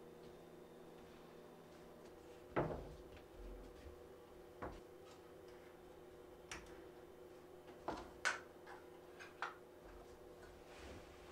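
A handful of short, sharp wooden knocks and taps as plywood pieces and tools are set down and shifted on a wooden workbench, the loudest about two and a half seconds in, over a faint steady hum.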